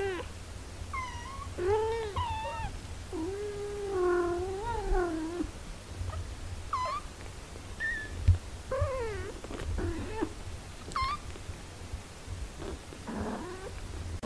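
Eight-day-old kittens mewing as they nurse: a string of short, high, wavering mews, with two longer, lower drawn-out cries around two and four seconds in. A single low thump about eight seconds in.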